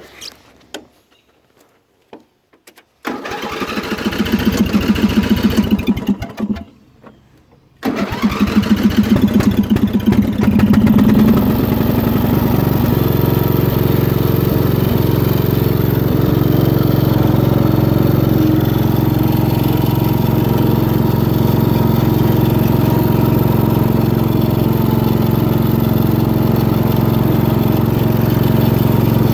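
A Craftsman riding mower's 15.5 HP Briggs & Stratton engine being started: a first try about three seconds in runs for a few seconds and stops, a second try about eight seconds in catches, and the engine then settles into steady running.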